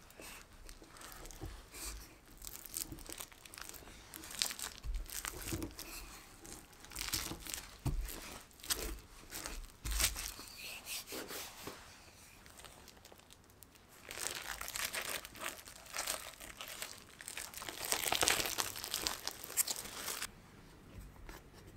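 Plastic cling film crinkling in repeated strokes as a rolling pin rolls tart dough between two sheets of it. About two-thirds of the way through comes a longer, louder stretch of crinkling as the top sheet of film is peeled off the dough.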